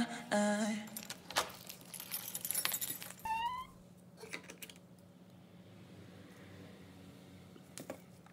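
Light clicks, clinks and rustles from hands handling tools on a floor covered with plastic masking sheet, with a short rising squeak about three and a half seconds in. The sounds then fall almost quiet, with one more click near the end.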